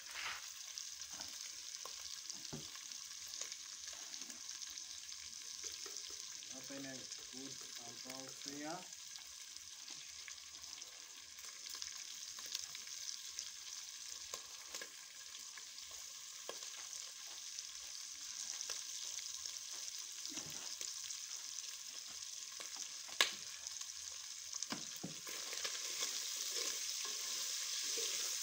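Beef frying in hot cooking oil: a steady sizzle with the scrape and clack of stirring, growing louder in the last few seconds. A short call sounds in the background about seven seconds in, and there is one sharp knock later on.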